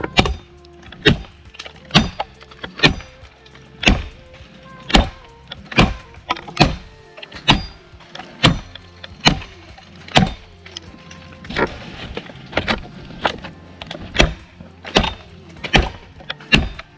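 Blade chopping into a tree limb: steady, sharp blows at about one a second.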